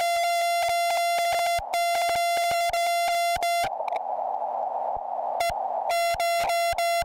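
Morse code sent as a keyed tone of about 700 Hz from a QRP-Labs QCX Mini CW transceiver, in quick, even dots and dashes. About halfway through the sending stops for two seconds of the receiver's narrow band hiss, then the keying resumes near the end.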